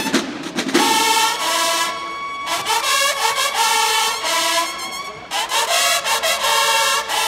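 Bugles of a Mexican banda de guerra playing a fanfare in unison, in phrases of held notes with short breaks between them. A short drum passage at the start gives way to the bugles about a second in.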